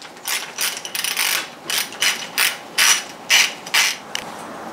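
Ratchet wrench clicking as it loosens the 10 mm bolts on an outboard's thermostat cap. Each back-swing gives a short burst of clicks, about ten of them, two or three a second.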